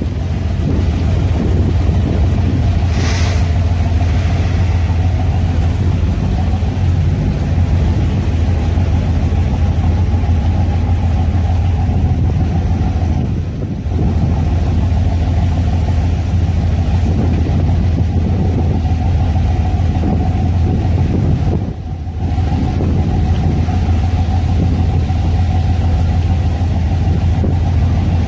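Inboard gasoline engines of a 1978 Carver 28-foot cruiser running steadily at slow cruising speed, a deep even rumble that dips briefly twice.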